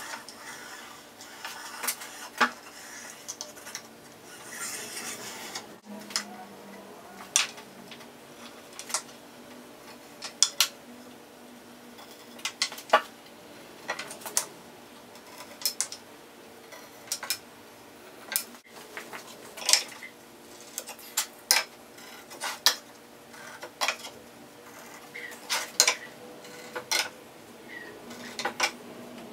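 A steel combination square being set down, slid and clicked against hardwood boards while lines are pencilled in. There are sharp, light metallic clicks about once a second, with some pencil scratching, over a faint steady hum.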